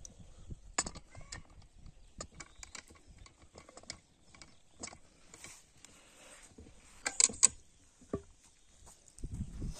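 Scattered metallic clicks and clinks as the lid clamp screws of a cast-iron pressure cooker are tightened with a wrench; two sharp clicks about seven seconds in are the loudest. A low rumble starts near the end.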